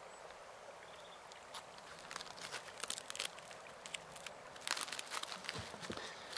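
Crinkling of a crumpled foil wrapper handled in the hands: a quiet, irregular scatter of small crackles that starts about a second and a half in.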